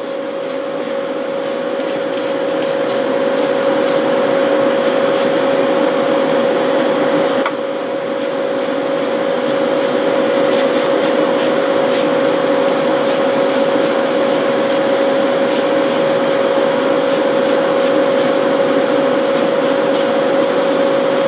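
Aerosol spray can of Tamiya TS-50 Mica Blue hissing as the color coat goes on, with a brief stop about seven and a half seconds in. Under it is the steady hum of the spray booth exhaust fans.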